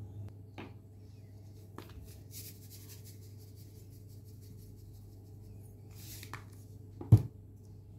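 Faint patter of salt being sprinkled from a shaker onto minced meat in a bowl, over a low steady hum. Near the end there is a single loud thump.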